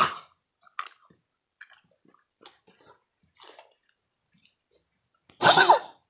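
A dog with kennel cough gives one short, harsh cough about five and a half seconds in, after faint scattered clicks and mouth sounds.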